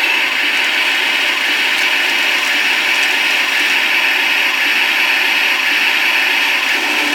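Matorro 1/16 King Tiger RC tank's sound unit playing its turret-traverse effect through the upgraded speaker while the turret rotates: a steady, hissing grinding-metal sound.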